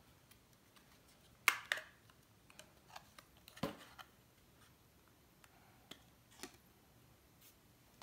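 Clear plastic CPU clamshell tray being handled and pried open: a handful of sharp plastic clicks and crackles at irregular moments, the loudest about one and a half seconds in.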